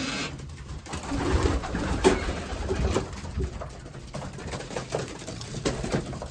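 Young racing pigeons cooing as they are fed grain, with many short clicks and rustles from the birds and the feed, busiest between about one and three seconds in.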